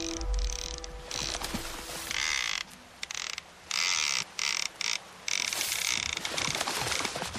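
Fishing reel ratchet clicking as a sound effect, in several bursts that start and stop abruptly.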